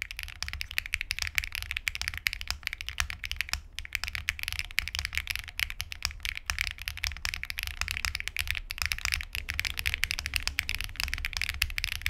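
Fast continuous typing on a Monka 6067 aluminium gasket-mount keyboard with Sillyworks HMX Hyacinth V2U linear switches and no PE foam, PBT keycaps clacking in a dense, steady stream of keystrokes.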